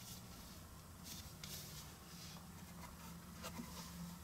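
Faint rustling and soft handling noises: cotton-gloved hands moving a leather card wallet and paper booklets, with several brief swishes over a low steady hum.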